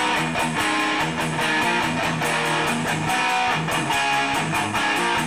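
Background instrumental music with guitar and a steady beat.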